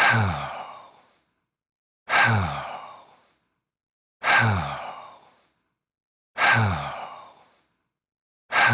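Stock sound effect of a man's sigh, repeated over and over on a loop about every two seconds; each sigh falls in pitch and fades out over about a second, with silence between.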